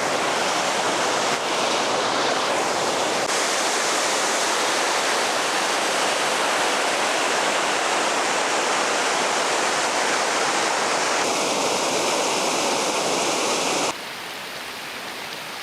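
Steady rushing of a waterfall, an even hiss of falling water; the sound steps down abruptly and gets quieter near the end.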